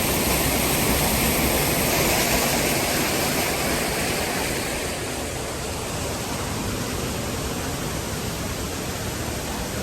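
Rushing water of a waterfall, a steady roar without breaks that eases slightly about halfway through.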